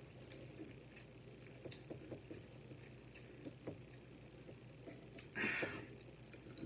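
Soft chewing and wet mouth sounds close to the microphone, with small clicks of a fork against a plate. About five seconds in, a brief louder scrape as the fork cuts through the omelette on the plate.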